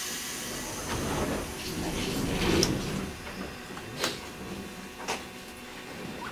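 Tram doors closing: a swell of sliding and air noise that peaks about two and a half seconds in, followed by two sharp clicks about a second apart.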